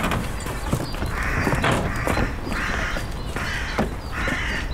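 Crow cawing: a series of harsh caws, about one a second, starting about a second in.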